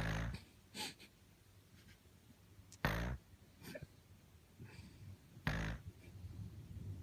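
Baby snoring in sleep: three short snores about two and a half to three seconds apart, with softer breathing sounds between them.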